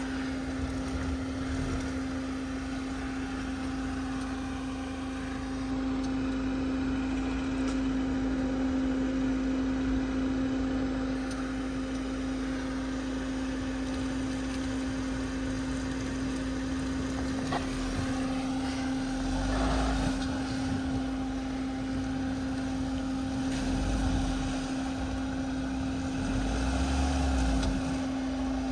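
Mahindra Scorpio N SUV's engine running at low revs with a steady hum as it crawls through a muddy rut, swelling a few times as it is given more throttle, with short deep rumbles near the swells.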